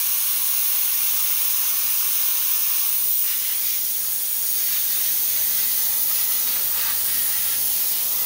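CNC plasma cutter torch hissing steadily with air rushing through its nozzle.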